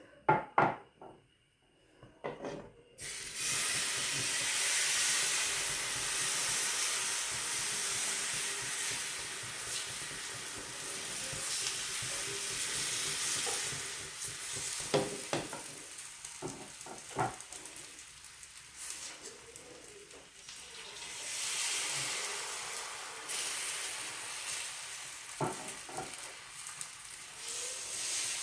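Suji and rice-flour batter for saru chakli pitha sizzling in a hot, oil-brushed kadhai, the sizzle starting suddenly about three seconds in. A few sharp utensil knocks.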